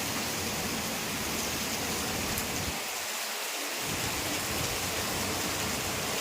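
Rain falling steadily: an even, continuous hiss of a downpour.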